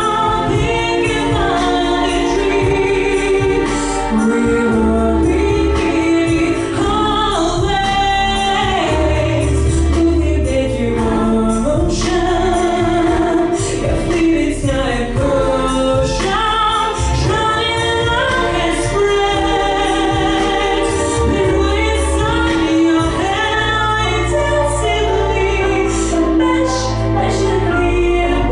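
A voice singing a pop song with long held notes over an instrumental backing track with a bass line.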